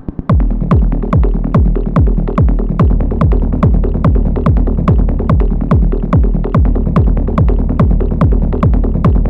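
Psytrance-style techno pattern from an Elektron Model:Cycles groovebox: a steady kick drum with a falling pitch, a little over two beats a second, over a rolling bass and ticking hi-hats. It starts a moment in, cutting in after a different, buzzier pattern.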